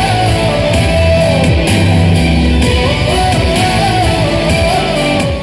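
Song with guitar and a heavy bass line, with a wavering lead melody over it, played through an F&D F550X 2.1 home theatre speaker system with subwoofer for a sound test. The music begins to fade out at the very end.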